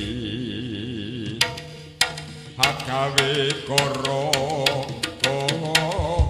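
Live jaranan gamelan music: a wavering melodic line over sustained low gong tones, punctuated by sharp percussive strikes. The strikes pause briefly about a second and a half in, then come thick and fast.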